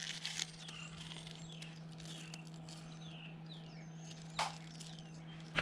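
Birds chirping: a string of short, downward-sliding calls over a steady low hum, with a single knock about four and a half seconds in.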